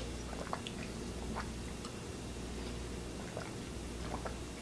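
A person drinking water from a plastic fruit-infuser bottle: faint scattered sips and swallows over a low steady hum.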